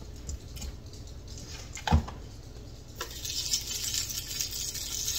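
Scalloped potatoes starting to sizzle on the hot plate of a waffle maker about three seconds in, a steady hiss that keeps on. Before that, quiet handling with a single sharp knock a little before the halfway point.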